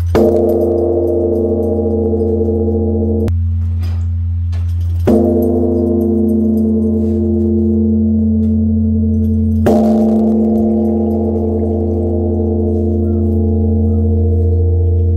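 Large Korean Buddhist bronze temple bell (beomjong) struck three times, about five seconds apart, with a swung wooden log striker. Each stroke gives a deep boom that rings on in a long low hum, still sounding when the next stroke lands.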